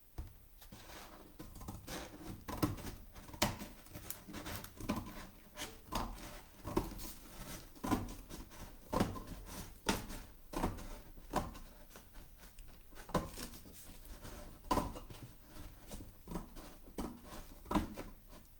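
Irregular taps, knocks and scrapes of a cardboard box being handled as its top is worked off, roughly one or two knocks a second.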